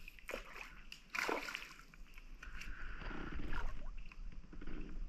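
Irregular water splashes and sloshing close beside a kayak.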